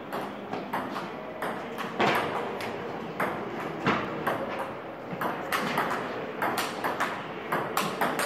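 Table tennis ball being hit back and forth in a rally, clicking off the bats and bouncing on the table about three times a second.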